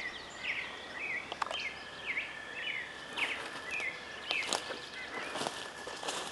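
Wild birds singing a run of short, downward-sliding whistled notes, repeated about twice a second, over a faint steady high tone. From about three seconds in there are scattered snapping clicks of footsteps in woodland debris.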